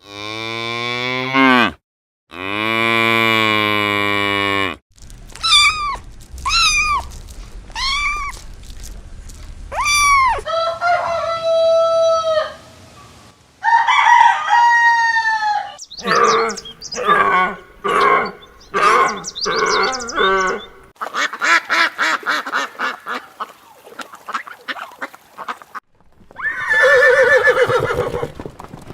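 A run of different farm animal and bird calls, cut one after another with abrupt breaks, among them fowl calls: two long calls, then about five arching calls roughly a second apart, then quicker pulsing calls.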